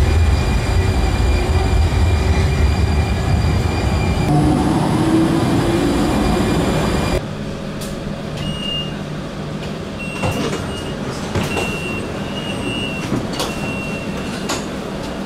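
Alicante TRAM light-rail train at an underground platform: a steady low rumble with a high whine held over it. About seven seconds in the sound cuts to the quieter inside of a tram car, with a low hum, a few clicks and several short high tones.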